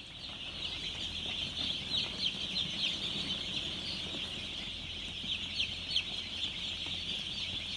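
A large flock of three-day-old broiler chicks peeping all together: a steady, dense chorus of short, high peeps that slide down in pitch.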